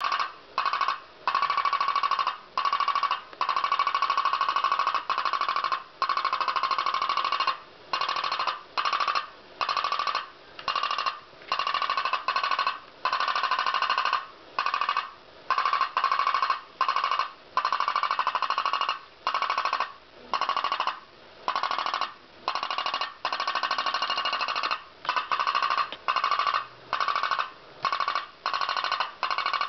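Homemade diaphragm-type pop-pop boat engine running, a loud rapid buzzing rattle of pops. The rattle breaks off for a split second every one to two seconds and picks straight up again.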